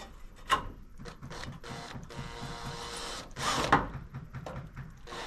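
Cordless drill driving a screw into a roof verge tile. A sharp click comes first, then the motor runs steadily for about a second and a half, followed by a louder, rougher clatter.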